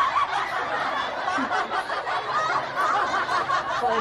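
People giggling and laughing.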